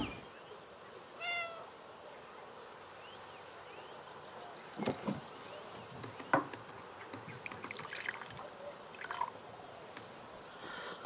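Quiet ambience with small birds chirping, a short pitched animal call about a second in, and a few soft knocks.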